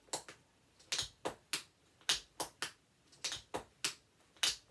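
Metal taps on tap shoes striking a wooden floor in a steady rhythm: groups of three sharp clicks about once a second, the jump, heel, step of a repeated Tori tap step.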